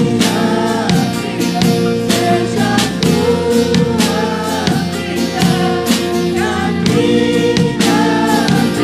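A live worship band playing a gospel song: a woman sings lead with backing voices over a steady drum beat, acoustic and electric guitars, and keyboard.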